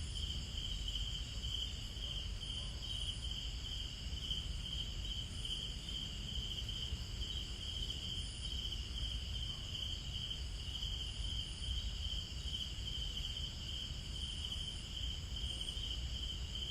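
Night-time chorus of insects, crickets among them: a steady, fast-pulsing high trill with thinner higher-pitched buzzing over it, and a low rumble underneath.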